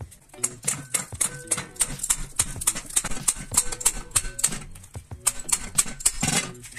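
Ratcheting wrench clicking at about four clicks a second as it turns the seat-post clamp bolt of an old bicycle, with a louder rasp near the end.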